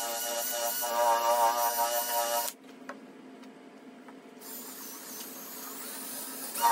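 Cordless drill spinning a foam polishing pad against a plastic light-bar dome, its motor whining with a slightly wavering pitch. It stops about two and a half seconds in, leaving a faint hiss, and starts again at the very end.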